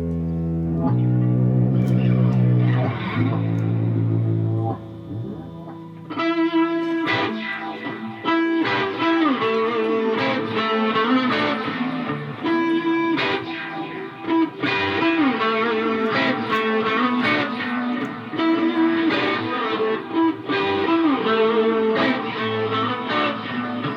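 Live instrumental music: a few low held notes at first, then from about six seconds in a busy melody of many short, quickly picked notes.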